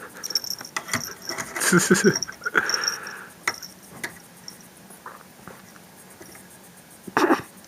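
A cat pawing and batting at a hair tie: scattered small scratches, taps and rustles. A brief soft vocal sound comes about two seconds in, and a louder scuffle near the end.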